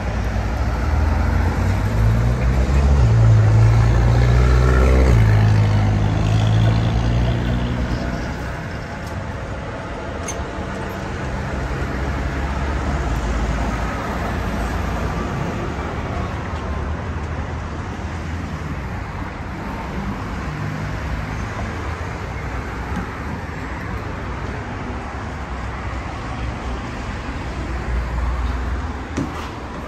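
Electric tram running on its line: a steady low rumble of wheels on the rails, with a motor whine that rises and then falls in pitch during the first several seconds.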